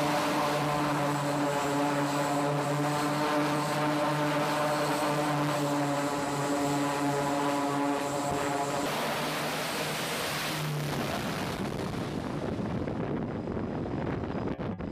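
Northrop Grumman E-2 Hawkeye's twin turboprops running steadily at high power with a droning propeller tone. About nine seconds in the tones break off and give way to a rushing noise that fades as the aircraft launches off the carrier deck and flies away.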